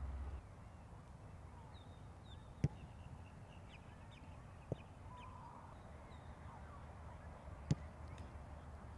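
A football thumping: two sharp thuds about five seconds apart, with a fainter one between them. Birds chirp faintly.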